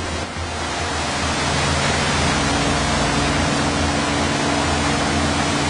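Motorboat under way at speed: a steady rush of churning wake water, with the engine's low steady hum underneath that grows a little more prominent about two seconds in.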